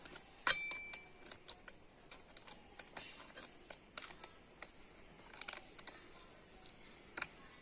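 Small metal parts and tools being handled while a chainsaw attachment is fitted to a hand angle grinder: one sharp metallic click with a short ringing ping about half a second in, then scattered light clicks and taps.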